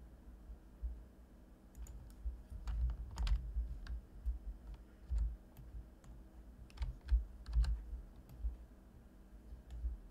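Computer keyboard keystrokes and clicks at an irregular, scattered pace, over low thuds.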